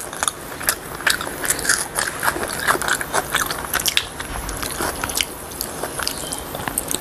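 Close-up eating sounds: masala-fried chicken being torn apart by hand and chewed, a dense run of irregular crunches and crackling clicks that thins out over the last few seconds.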